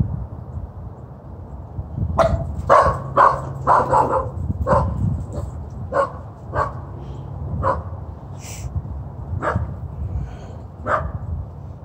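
Small dog barking: a run of about a dozen sharp barks starting about two seconds in, several a second at first, then slowing to about one a second.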